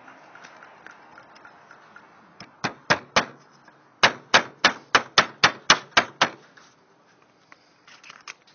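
Hammer blows: three sharp strikes, then a quick run of about nine at roughly four a second, as in slate roof repair work, with light taps beforehand.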